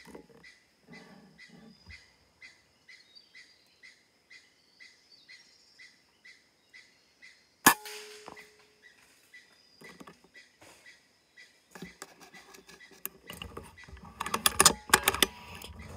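A single shot from a PCP air rifle about eight seconds in, the loudest sound, with a brief tone after it. Before the shot a faint chirp repeats about twice a second. Near the end comes a run of rustling and sharp knocks and clatter.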